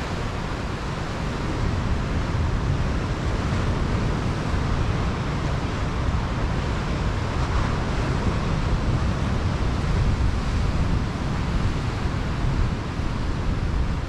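Pacific surf breaking on a sand-and-rock beach: a steady wash of white water with a deep low rumble, swelling a little louder about two seconds in.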